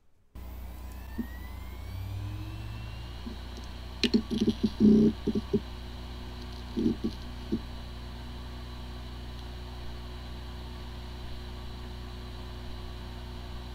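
Hard disk drive powering up: its spindle motor whine rises in pitch as the platters spin up. Short bursts of clicking come about four and seven seconds in, then a steady whir. It sounds like a healthy drive, but this one has corrupted disk firmware, a fault in which the drive spins fine but the computer cannot detect it.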